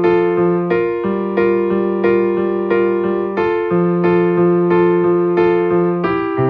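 Background music: a keyboard in an electric-piano sound playing repeated chords at a steady pulse of about three strikes a second, changing chord every few seconds.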